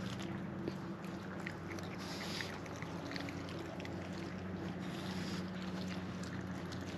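Raccoons crunching and chewing food, heard as small scattered clicks over a steady low mechanical hum.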